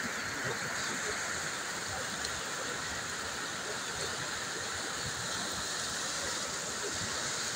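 Muddy floodwater rushing down a paved street, a steady, unbroken rush of water.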